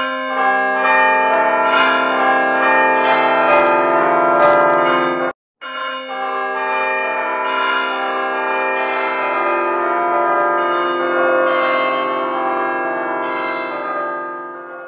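Bells ringing, many overlapping tones sustained together. The ringing cuts off abruptly about five seconds in, resumes half a second later, and fades near the end.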